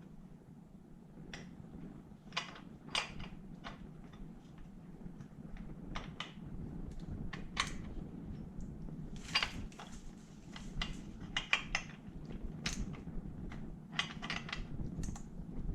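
Irregular metallic clicks and clinks of hand tools and small metal engine parts being handled during an engine teardown, more frequent in the second half, over a steady low hum.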